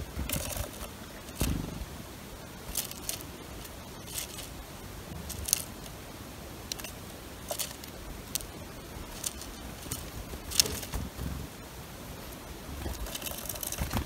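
Irregular sharp ticks and scrapes at a bird-feeder tray as a black-capped chickadee lands and picks among sunflower seeds, about a dozen over the stretch, under a low rumble.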